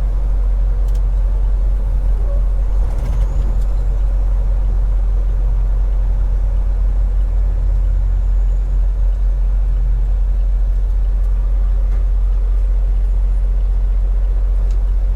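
Steady low drone of a semi-truck's engine and road noise while driving, heard from inside the cab.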